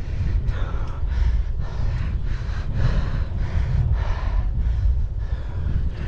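A cyclist breathing hard and fast while climbing a hill with light electric assist, over steady wind rumble on the microphone.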